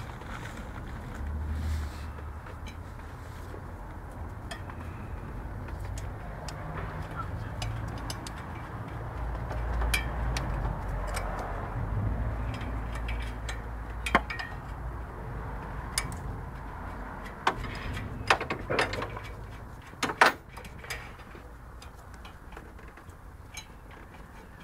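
17mm spanner clinking against the injector pipe union nuts as they are undone on a 1.9 diesel engine, with a handful of sharp metallic clicks in the second half over a steady low background hum.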